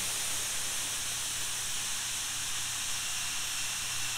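Jet Central Rabbit model turbine engine running at high speed, a steady jet hiss, throttled back from full power as its speed falls from about 143,000 to 121,000 RPM.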